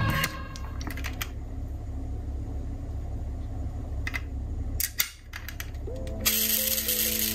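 Scattered light clicks and taps from a diecast metal model car being handled, over a low steady hum, with a short cluster of clicks about five seconds in. Music comes back in near the end.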